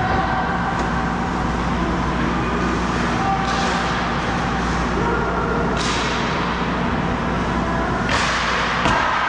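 Ice hockey game sounds: skates scraping across the ice, with a few sharper scrapes or stick-and-puck hits about three and a half, six and eight seconds in, over a steady low rink hum.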